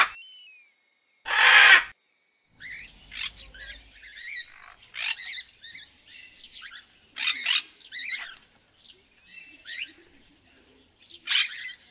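Parrots calling: one loud harsh squawk about a second in, then a long run of short squawks and chattering calls, with louder squawks about halfway through and near the end.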